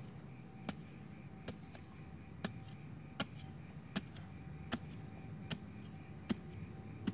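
Crickets chirring in a steady, continuous chorus at two high pitches. A soft click comes about every three-quarters of a second.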